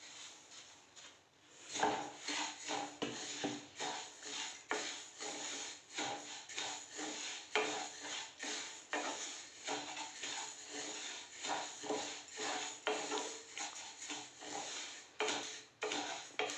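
Sesame seeds poured into a non-stick kadhai with a soft patter, then a spatula stirring and scraping the dry seeds around the pan in repeated strokes, about two a second, as they are dry-roasted.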